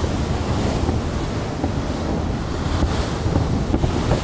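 Wind buffeting the microphone over a steady rush of water aboard a motor cruiser on the harbour, with a few faint knocks.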